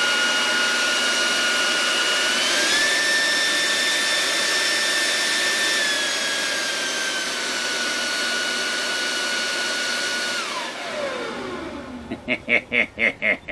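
Toro PowerJet F700 corded electric leaf blower running with a high steady whine. About two seconds in its variable speed is raised and the pitch steps up, then eases back down around six seconds. About ten seconds in it is switched off and the whine falls away as the fan spins down.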